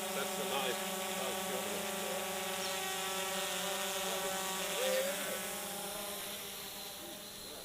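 Small multirotor drone's electric motors and propellers buzzing at a steady pitch, with slight wavers. The sound fades gradually over the last two seconds as the drone moves away.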